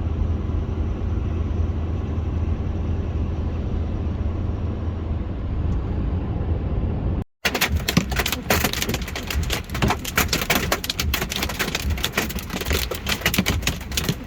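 A steady roar of a storm's heavy rain and wind with a deep rumble. After a brief break about seven seconds in, comes a dense, irregular clatter of hailstones pelting a vehicle.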